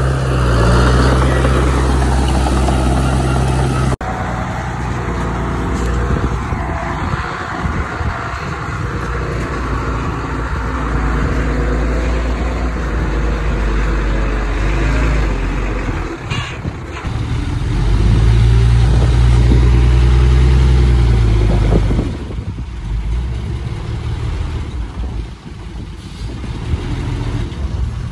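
Heavy diesel construction machinery running: a dense engine rumble that rises to loud, deep stretches at the start and again about two-thirds of the way through, with abrupt changes where the audio is cut.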